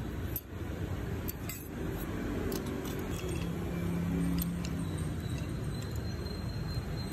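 Light clinks of a metal spoon against clam shells and a clay pot as steamed clams are stirred in their broth, over a steady low rumble of street traffic that grows slightly louder mid-way as an engine passes.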